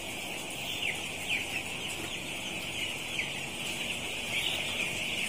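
A large flock of nine-day-old broiler chicks peeping: a steady, high chorus of many overlapping cheeps.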